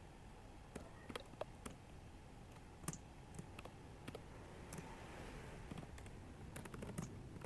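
Faint computer keyboard typing: scattered single keystroke clicks at irregular intervals, with a quicker run of several keys near the end.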